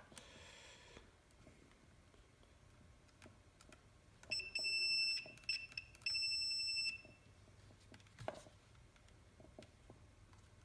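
Multimeter continuity tester beeping twice, each a steady high beep just under a second long, about a second apart, with faint clicks of the probes and handling around them. The beep signals a closed circuit through the wire or switch under test.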